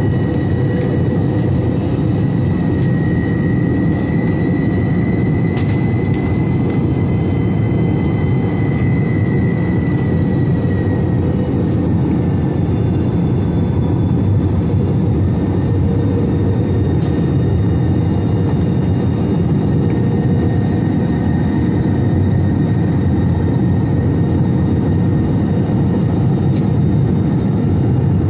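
Steady jet noise of an Airbus A321-211 in flight: a dense, even rumble of its engines and airflow, with a faint high whine that rises a little and fades away about a third of the way in.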